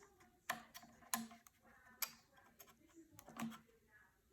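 A few light, separate clicks and taps of small parts being handled as an M.2 adapter card is pushed into the M.2 port on an iMac logic board.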